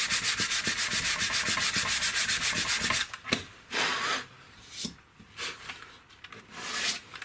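Sandpaper rubbed quickly back and forth by hand along a wooden slat, in a fast even rhythm for about three seconds. Then come several separate short strokes.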